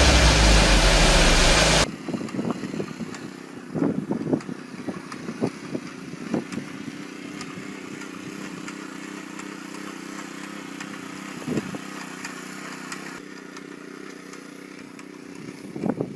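A loud machine engine runs for about two seconds and cuts off sharply. After that a quieter steady mechanical hum continues, with scattered knocks and clatter.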